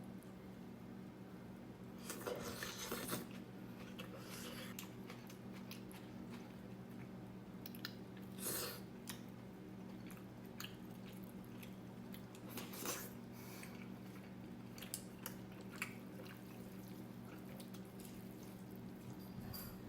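Quiet kitchen handling sounds: scattered soft clicks, taps and brief rustles over a steady low hum.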